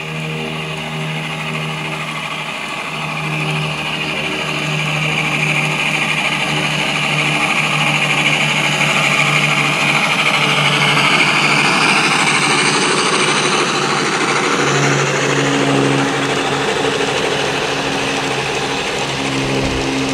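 Large-scale garden-railway train of tank cars rolling past on outdoor track: metal wheels running and clicking along the rails, loudest about halfway through as the cars pass closest, over a low hum that breaks off and comes back.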